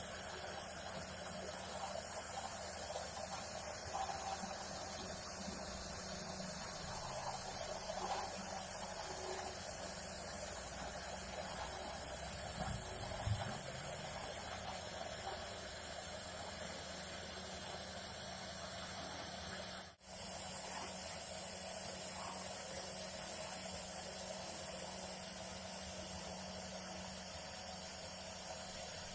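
CNC router spindle running steadily as it carves foam, a continuous high hiss. The sound cuts out for a moment about two-thirds of the way through, then resumes.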